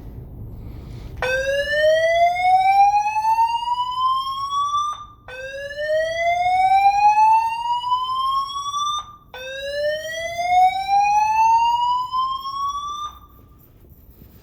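Notifier fire alarm system's speakers sounding an evacuation tone: three long rising sweeps, each about four seconds, climbing steadily in pitch with a brief break between them. The uploader takes the alarm for a test.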